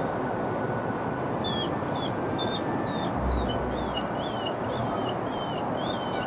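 A dog whining in short high-pitched whimpers, about two a second and coming more often in the second half, over a steady rushing background noise.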